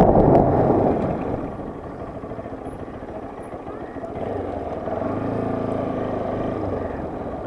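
Motorcycle engine running at a steady speed on the move. A louder rush of noise in the first second or so fades, and the engine's steady hum comes through more clearly from about halfway.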